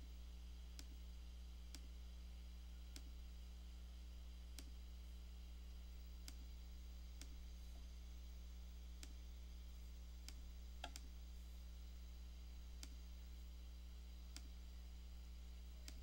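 Faint computer mouse clicks, about one a second at uneven spacing, as the points of a mask are placed. A steady low electrical hum runs underneath.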